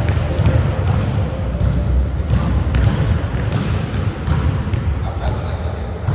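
A basketball bouncing on a hardwood gym floor in sharp, irregular knocks over a heavy low rumble, with players' voices.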